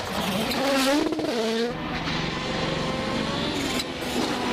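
Rally car engines at speed, revving hard, the pitch climbing and then dropping sharply several times as the cars shift gears.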